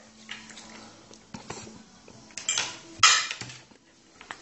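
Light clinks and scrapes of cutlery and hands on a plate, with one short loud burst of noise about three seconds in.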